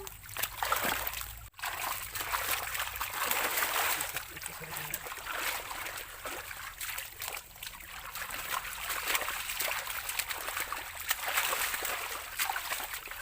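Shallow water splashing, sloshing and trickling as hands grope through it for fish, with many small splashes throughout.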